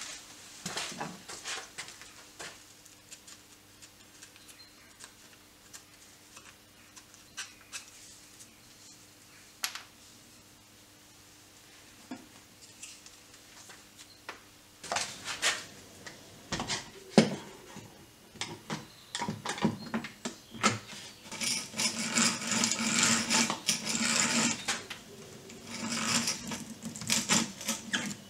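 Hand-tool woodworking on pallet wood: scattered light clicks and taps of tools at first, then from about halfway sharper knocks and repeated rasping scrapes of a tool working the wood.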